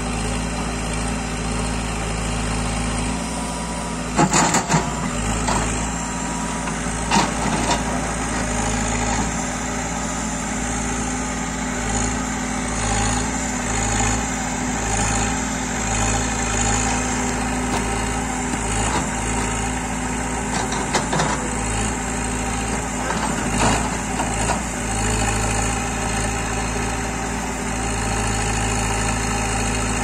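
Cat 416E backhoe loader's diesel engine running steadily while the backhoe arm digs, with a few sharp knocks now and then.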